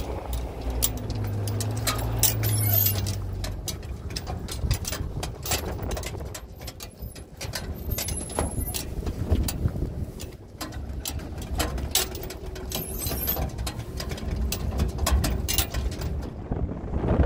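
A vehicle driving over a rough, stony dirt track: a low engine note and rumble under many short rattles and knocks as it jolts over the ruts.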